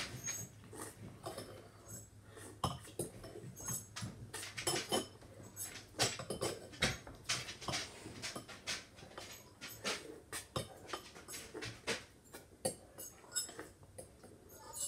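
Pencil scratching and tapping on a sheet of paper on a hard tabletop: many short, irregular strokes and clicks.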